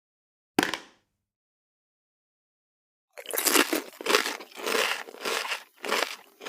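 A single sharp hit about half a second in, then from about three seconds in an irregular run of loud crunches, like bites into crisp food: an eating sound effect.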